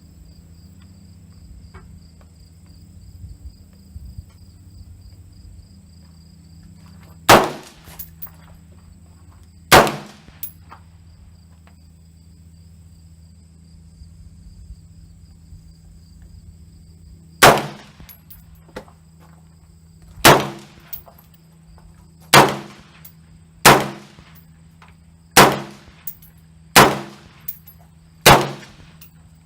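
AR-15 rifle fired in single shots, about ten in all: two a few seconds apart, then after a pause a quicker string of one shot every one and a half to two seconds, each shot ringing briefly. A steady pulsing trill of insects runs underneath.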